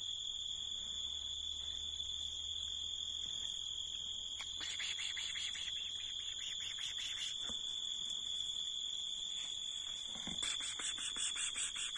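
Night insects singing: a steady high-pitched trill runs throughout, joined twice by bouts of rapid pulsed chirping at about five or six pulses a second.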